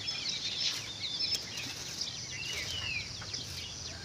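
Small birds chirping, many short, quick high calls overlapping.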